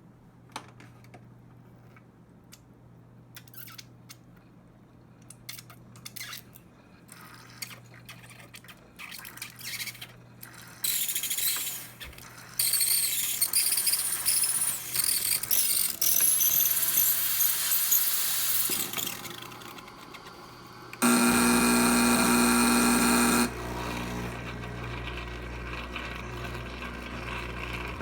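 Breville BES870 espresso machine making a fault noise: scattered crackles at first, then a long, loud crackling hiss in the middle, then the pump running with a loud buzzing hum for about two seconds near the end. The crackling on pressing the buttons is a fault that the owner says is worst when drawing water after using the steam.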